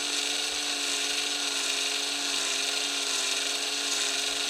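Cordless drill running at a steady speed with a tiny die-cast-model wheel axle spinning in its chuck. It gives a constant high motor whine.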